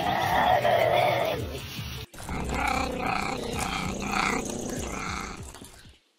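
Margay, a small spotted wild cat, calling: one drawn-out call, then after a sudden break a run of about five short calls.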